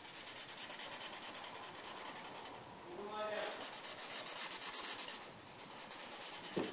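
Green felt-tip marker scribbling rapidly back and forth on paper, several strokes a second, with a short break about three seconds in.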